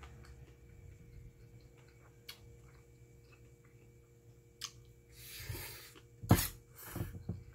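Soft chewing with small clicks, then near the end a metal spoon scrapes and clinks against a stainless steel bowl of rice as a spoonful is scooped up, the loudest sound.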